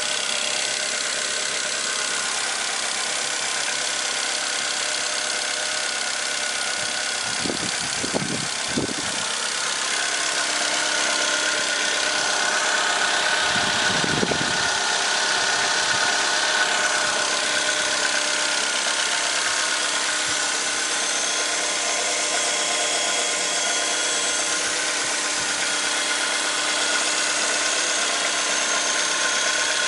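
Chevrolet Aveo's 1.2-litre petrol engine idling steadily, heard up close in the open engine bay. It gets a little louder about ten seconds in.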